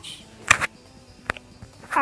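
Handling noise from a handheld phone: a brief rustle about a quarter of the way in, then a single sharp click a little past halfway.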